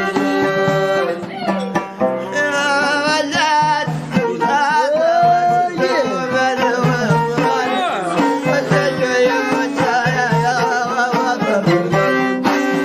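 Traditional Amazigh music: a wavering, sliding melody over plucked strings and a steady hand-drum beat.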